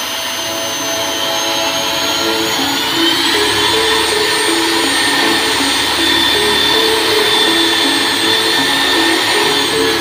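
Corded electric drill mounted in a homemade drill-press stand, running steadily as its bit bores into a plywood board; the motor's whine steps up slightly in pitch about two to three seconds in. Background music plays underneath.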